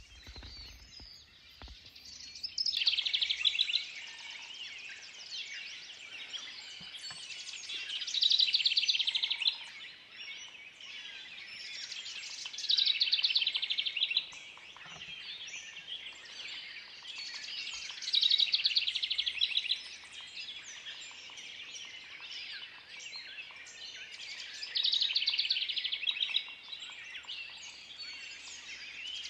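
A songbird repeating a fast trilled song about every five seconds, five times, over a steady background chorus of other birds.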